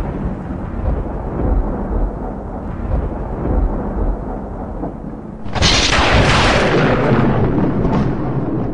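Thunder rumbling low and steady, then a sudden sharp crack of thunder about five and a half seconds in that rolls on into a long rumble, slowly fading.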